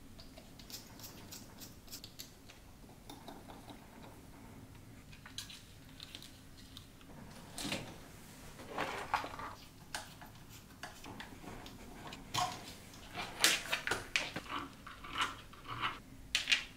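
Scattered light clicks and clatter of small 3D-printed plastic RC chassis parts, screws and a hex driver being handled and fitted during assembly. It grows much busier from about halfway through.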